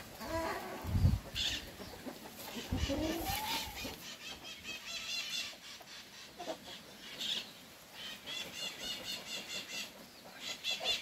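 Chickens clucking around the yard, with one rising call about three seconds in, over quick, high, repeated chirping of small birds.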